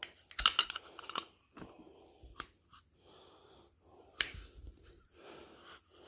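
Air compressor piston with its Teflon ring being forced into the cylinder by hand: a cluster of small metal clicks and scrapes about half a second in, then scattered ticks and a sharper click about four seconds in.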